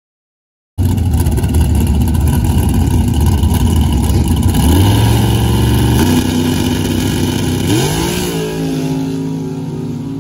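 Stepside pickup's race engine starting up loud about a second in, revving at the line, then accelerating hard down a dirt track with its pitch climbing in steps and the sound fading as the truck pulls away.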